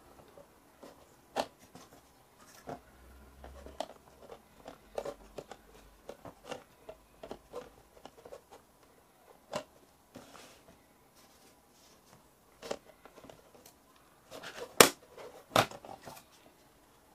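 Fingers pressing Play-Doh into a hard plastic toy mould, with scattered light taps and clicks as the plastic is handled. Two sharper plastic clacks come near the end as the mould is tilted and moved.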